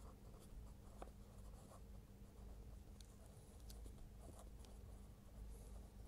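Faint scratching of a pen writing on notebook paper, with a few light ticks of the pen against the page.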